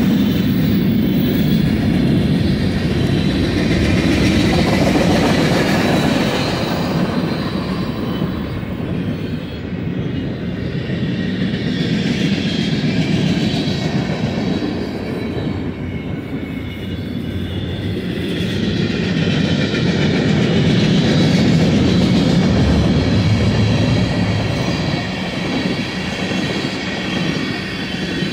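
Freight cars of a BNSF manifest train rolling past: covered hoppers, centerbeam flatcars, autoracks and tank cars rumbling and rattling over the rails. The noise is steady and loud, swelling and easing as different cars go by.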